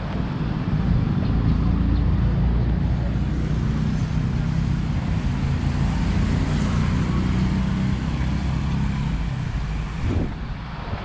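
Road traffic: a motor vehicle's engine running low and steady as it passes close by on the street, dying away about nine seconds in.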